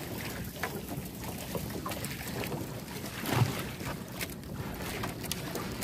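Water sloshing around a small outrigger boat, with wind on the microphone and scattered light knocks from the boat, and one louder thump about three and a half seconds in.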